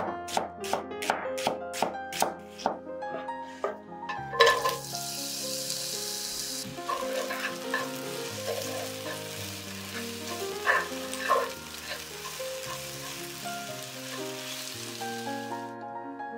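Knife chopping red onion on a wooden cutting board, about three strokes a second, stopping near three seconds in. About four seconds in a knock starts the sliced onion sizzling in a frying pan as it is stirred with wooden chopsticks, the sizzle strongest at first and running until just before the end. Soft piano music plays underneath.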